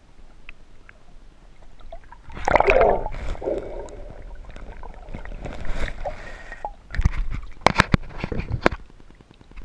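Water sloshing and splashing as a hand net is swept through a stream and lifted out, with several sharp knocks in the later part.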